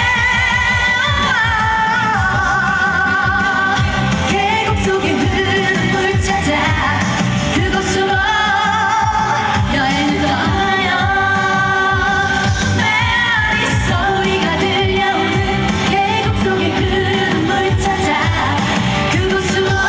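A woman singing a trot song with a wavering vibrato over a backing track with a steady beat.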